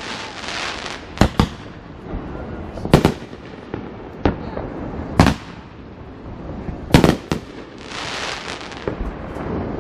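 Fireworks going off: a string of sharp bangs, about seven, the loudest about 3 s and 7 s in. There are two spells of hissing crackle, one just after the start and a longer one near 8 s.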